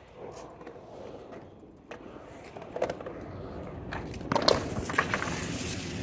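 Skateboard wheels rolling on a concrete bowl, growing louder, then a cluster of sharp clacks and smacks about four and a half to five seconds in as the rider falls and the board hits the concrete.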